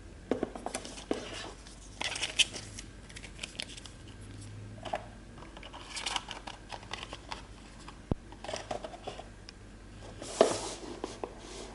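Cardboard phone packaging being handled: box pieces and paper inserts tapping, sliding and rustling in a run of short clicks and scuffs. The loudest is a sharp scuff near the end as the boxes are pushed together.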